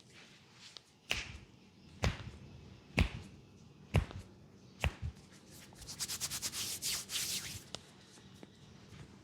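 A barber's hands striking during a head massage: five single slaps about a second apart, then a quick run of about fifteen crisp slaps in under two seconds.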